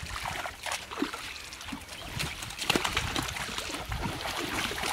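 Shallow pond water splashing and trickling in many quick, irregular small splashes as men wade and haul a fishing net through it.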